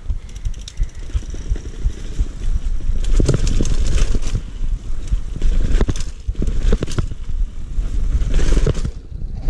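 Mountain bike riding down concrete stairs: a run of sharp knocks and rattles as the tyres and frame hit the steps, from about three seconds in, over a heavy low rumble.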